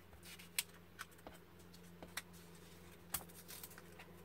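Faint rustle of thin scrapbook paper being pressed and smoothed by hand onto a card, with a few sharp ticks from the paper and fingers, over a steady low hum.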